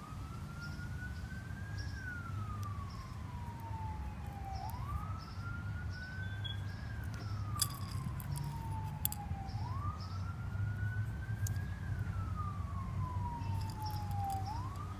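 A siren wailing, its pitch climbing for about two seconds and then falling more slowly, three full rise-and-fall cycles, over a steady low hum with scattered small clicks.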